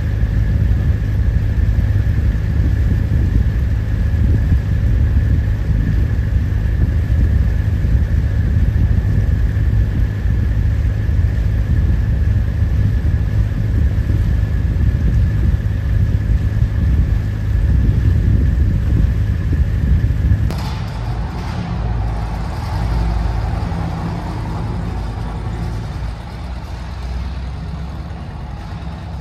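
Machinery running steadily: a loud low rumble with a faint, steady high whine over it. About two-thirds of the way through it cuts abruptly to a quieter, hissier ambience.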